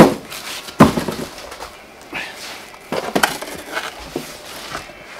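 Bags of frozen meat being handled in a chest freezer: a sharp knock right at the start and another just under a second in, then crinkling plastic and small knocks as the frozen packs are moved about.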